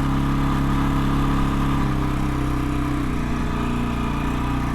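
A vehicle engine running steadily at idle; its note shifts slightly about two seconds in.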